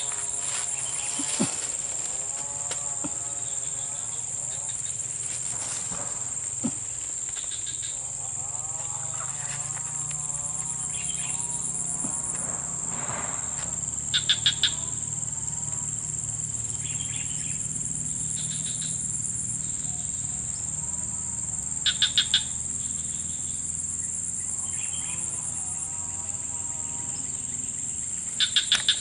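Steady high-pitched insect chorus of swamp crickets and cicadas. Three times a group of about four quick, sharp chirps stands out loudest, and a few softer wavering calls come and go.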